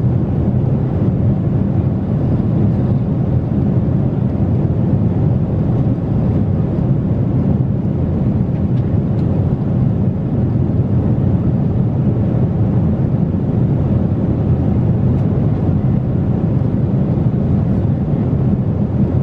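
Steady low cabin roar of a Boeing 777-300ER airliner in cruise. It is an even rumble of airflow and engine noise that does not change.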